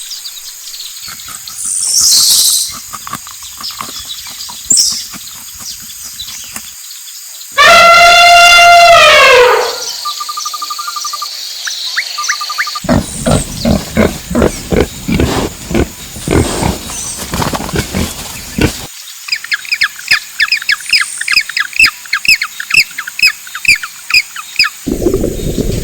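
A string of animal calls over outdoor ambience: brief high chirps, then about eight seconds in a loud call that falls in pitch, followed by rapid clicking and a run of evenly repeated chirps.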